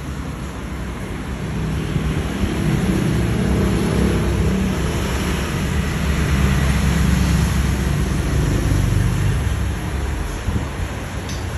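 Steady rumbling hiss of an electric pedestal fan's airflow buffeting the phone's microphone. It grows louder about two seconds in as the fan comes close.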